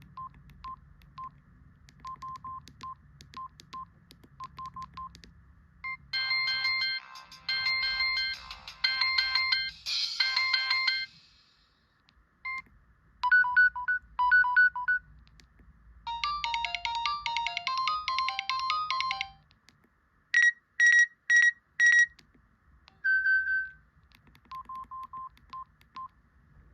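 Samsung SGH-T809 mobile phone playing a series of short electronic ringtones through its speaker, one after another: runs of single beeps, short polyphonic jingles, and a set of four loud beeps.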